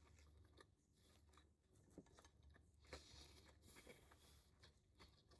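Faint chewing and mouth sounds of someone eating a sandwich close to the microphone, with a few small clicks and a brief soft hiss.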